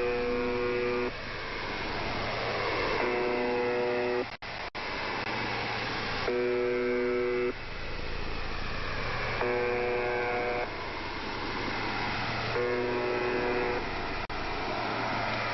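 A buzzer sounding in one-second blasts about every three seconds, five times, each a low, harsh, steady buzz, over a steady background hiss.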